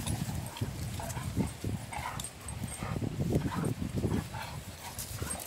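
Dogs whimpering and yipping a few short times while playing over a stick, over low thumps and rustling.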